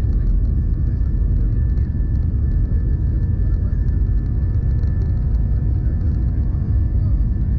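Steady loud rumble of an Airbus A319 with IAE V2500 engines at takeoff power, heard from inside the cabin, with a faint steady whine above the rumble.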